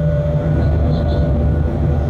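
Freight locomotive's cab noise while the train is running: a steady low rumble with a steady mid tone over it, and a faint short high double chirp about a second in.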